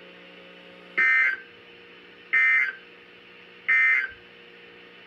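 Three short bursts of Emergency Alert System SAME digital data from a NOAA Weather Radio broadcast, each a fraction of a second long and about a second and a half apart, over a steady low hum. These bursts are the end-of-message code that closes the flood warning.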